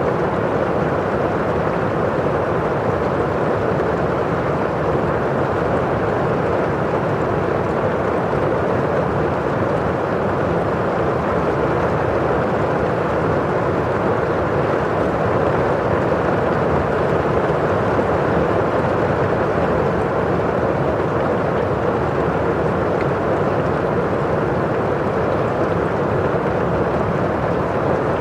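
Steady rain falling on a window pane, with the rush of rain outside: an even, unbroken hiss with no single drops or thunder standing out.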